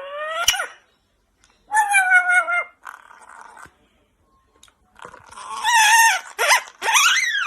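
A parrot making several separate pitched calls with short gaps between them, some sliding up and down in pitch.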